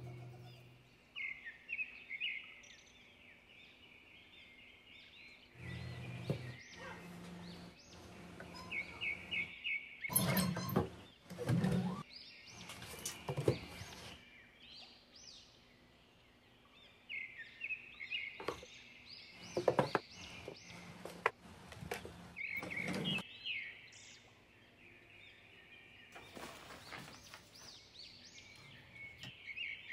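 A bird chirping in repeated quick runs of short, high notes, mixed with knocks and rattles from wooden kitchen drawers being slid open and things in them being handled.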